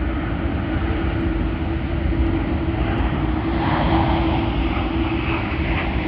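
Jet airliner engines running: a steady, continuous rumble with a faint held hum.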